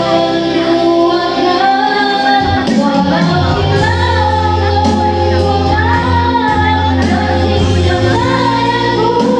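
A song with a woman singing over a steady backing band.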